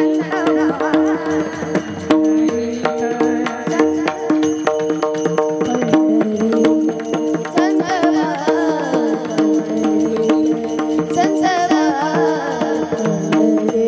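Varkari bhajan music: steady held harmonium-like tones under a dense hand-drum and cymbal rhythm, with ornamented, wavering melodic lines rising over it a few times.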